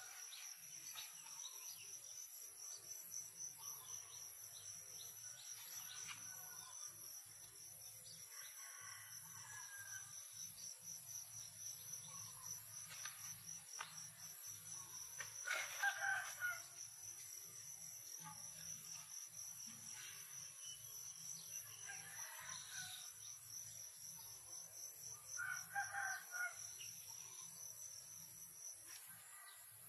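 Insects trill steadily in one high pulsing tone that cuts out near the end. A rooster crows about halfway through and again a few seconds before the end, with scattered bird calls in between.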